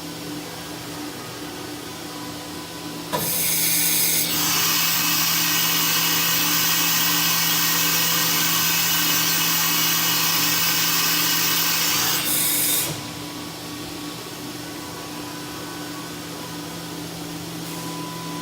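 Fadal VMC 4020HT CNC vertical mill running with a steady hum. About three seconds in, a loud rushing, hissing noise starts and holds for about nine seconds before cutting off.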